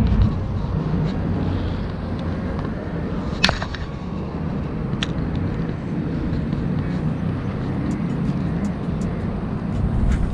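Wind rumbling on the camera's microphone, with a sharp click about three and a half seconds in and a few fainter ticks after it.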